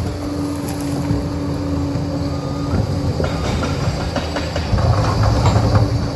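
Liebherr PR 746 crawler dozer's diesel engine running, with a steady hum that stops about a third of the way through and the steel tracks clanking over and over.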